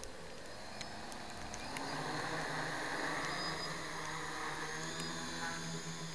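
Quadcopter's MS2216 900kv brushless motors with 10x4 wooden props spinning up about two seconds in, then running with a steady hum.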